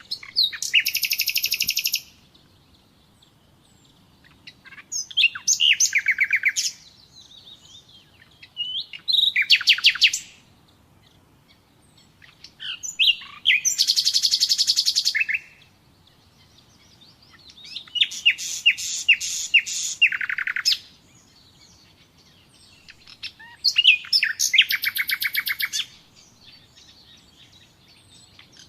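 Common nightingale singing: six separate phrases, each a fast run of rapidly repeated notes lasting about two seconds, with pauses of about two seconds between them.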